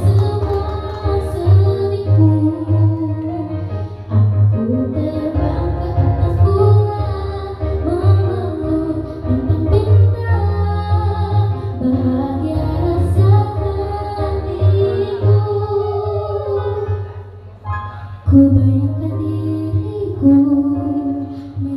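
A young girl singing solo into a microphone over an amplified backing track with a steady bass line, with a short break between phrases about three-quarters of the way through.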